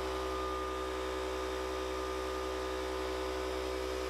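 Air compressor motor running with a steady, even hum.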